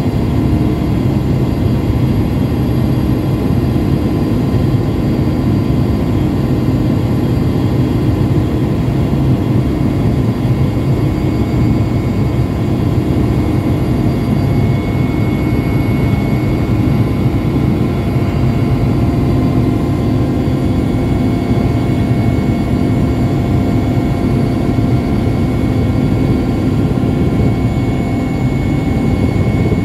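Helicopter engine and rotor heard from inside the cabin in flight: a loud, steady drone with thin high whining tones over it.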